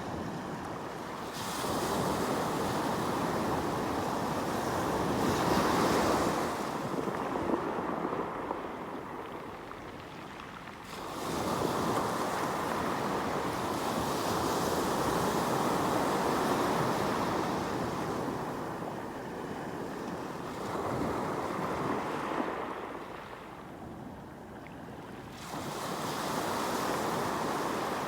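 Sea waves breaking and washing up on the shore, each surge swelling and then fading, roughly one every five to ten seconds.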